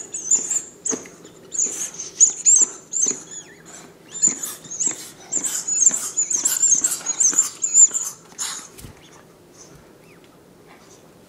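Rubber chicken-leg squeaky toy being chewed by a young Doberman, squeaking rapidly and repeatedly in high-pitched, wavering squeaks. The squeaking stops about three-quarters of the way through.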